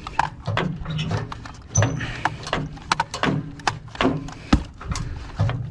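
Irregular knocks and clanks of hand-tool work on a water heater's fittings: a dozen or so sharp hits spaced unevenly, over a low rumble.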